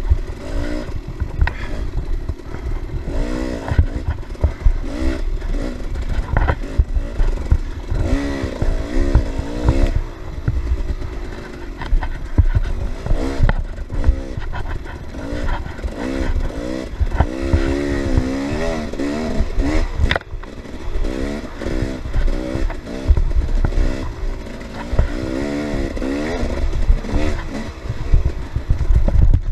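Off-road dirt bike engine revving up and down over and over as it is ridden hard in a race, with thumps and rattles from the bike hitting rough ground under a constant low rumble.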